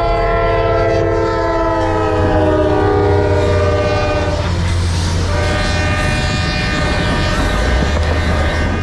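Freight diesel locomotive's multi-chime air horn sounding a long chord whose pitch drops as it passes. After a short break a second long blast follows, over the steady low rumble of the engines and the train on the rails.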